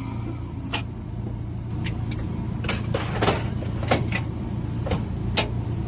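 Short scraping strokes of a hand file deburring a freshly machine-cut car key, about ten at uneven spacing, over a steady low hum.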